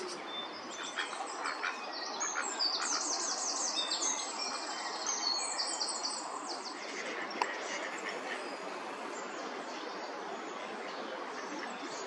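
Several songbirds singing, with quick high trills and chirps busiest from about two to six seconds in, over a steady background hiss. A single sharp click comes a little past halfway.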